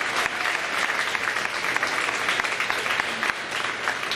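Audience applauding steadily as award recipients are called forward, a dense patter of many hands clapping that eases slightly near the end.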